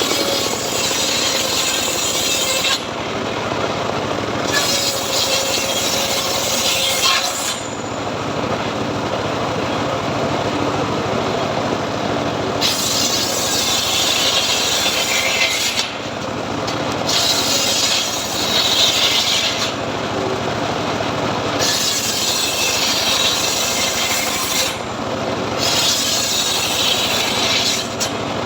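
Home-built srekel sawmill running steadily while its blade cuts teak. A hissing, rasping cutting noise comes and goes in stretches of a few seconds over the constant machine hum.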